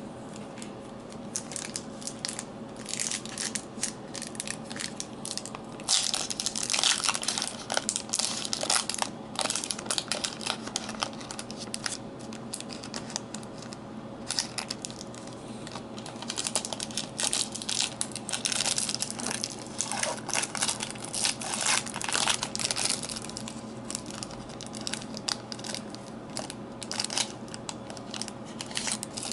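Foil wrapper of a trading card pack crinkling and crackling as it is handled in the fingers, in irregular spells, heaviest about six to nine seconds in and again from about seventeen to twenty-three seconds.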